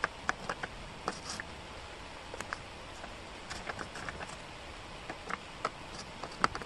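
Small wooden jigsaw puzzle pieces clicking against each other and the board as they are handled and fitted, in scattered irregular light clicks, the sharpest one near the end.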